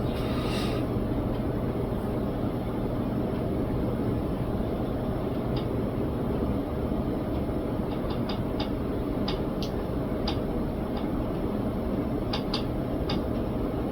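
Steady whir and low hum of a running computer's cooling fans. Light clicks come in small clusters from about five seconds in.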